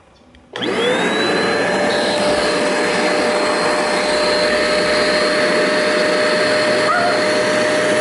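Hoover Spotless portable carpet spot cleaner switched on: its suction motor starts suddenly about half a second in, whines up in pitch over a second or so and then runs steadily.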